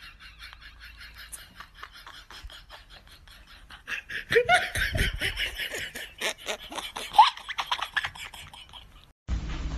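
Laughter: a fast run of ha-ha pulses, louder from about four seconds in with a few short rising squeals, cutting off abruptly near the end.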